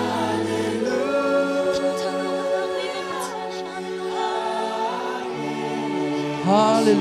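Worship team singing a slow gospel song together into microphones, holding long notes, with a voice sliding up into a note near the end.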